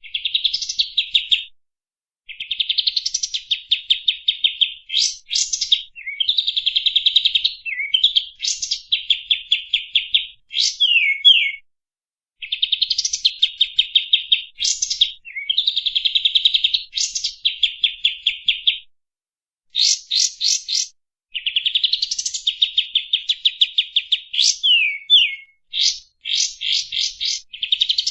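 Kapas tembak songbird singing in long, fast rattling trills, phrase after phrase, broken by sharp whistled sweeps and short pauses.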